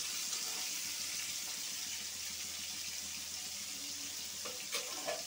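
Pointed gourd (potol) pieces sizzling steadily in hot soybean oil in a wok as they brown, with a couple of faint clicks near the end.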